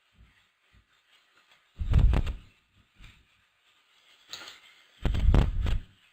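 Two short bursts of low rumbling noise right on the microphone, each under a second, about three seconds apart.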